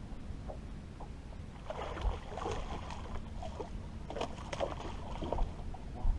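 Steady low rumble of wind and water around a fishing boat, with a cluster of short knocks, rattles and splashy noises through the middle.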